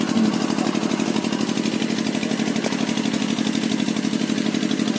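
A small engine running steadily at an even idle-like pace, with no change in speed.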